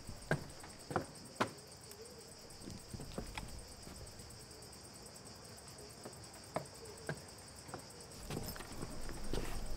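Insects trilling steadily in a high, fast chirp, with a few scattered footsteps on hard ground. A low rumble swells near the end.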